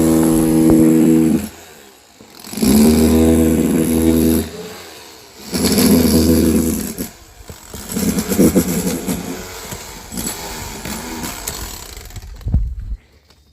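Small petrol engine revved in about four bursts of one to two seconds, dropping back between them, then running rougher and quieter before shutting off near the end.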